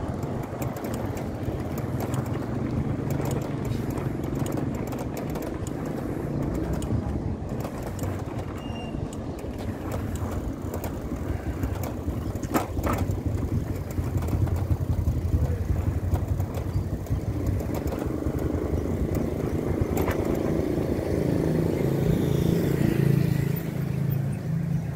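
Steady low rumble of wind on the microphone and road noise from riding a bicycle along a street, with motor vehicle engines in passing traffic. It grows somewhat louder in the second half.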